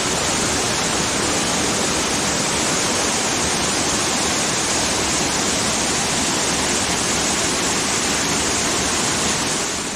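Man-made waterfall splashing down into its pool: a steady, loud rush of falling water that fades away just before the end.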